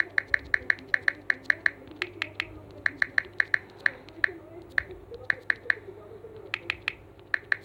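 Clicks of a phone's on-screen keyboard as a message is typed, short sharp ticks coming in quick irregular runs of several a second with brief pauses between.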